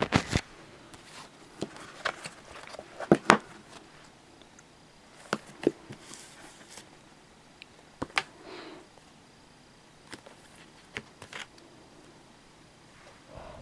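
Handling noise from hands on paperback manga volumes and the camera: scattered sharp clicks and taps, the loudest pair about three seconds in, with brief soft rustles of paper and covers.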